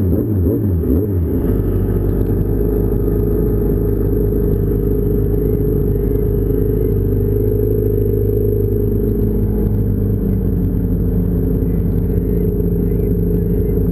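2006 Yamaha Apex Attak snowmobile's four-stroke inline-four engine running at low revs, its pitch wavering briefly at the start and then holding steady as the sled idles and creeps along.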